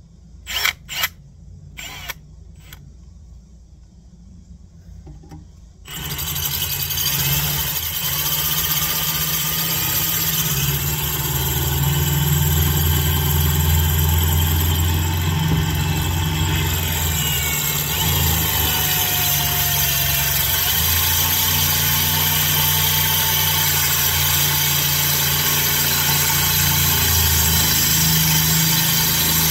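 A few sharp clicks, then from about six seconds in a cordless drill runs continuously, its bit boring into the hard steel of a brake rotor. The metal is tough enough to dull and overheat the bit, so progress is slow.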